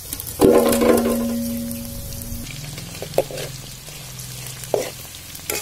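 Chicken pakoras deep-frying in hot oil in a large kadai, a steady sizzle throughout. About half a second in comes a loud metallic clang that rings on for about two seconds, followed by a few short knocks of the slotted spoon against the pan as the pakoras are stirred.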